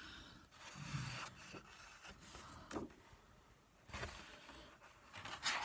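Soft rustling and scraping of paper as the pages of a coloring book are handled and turned, with a few short swishes, the largest near the end.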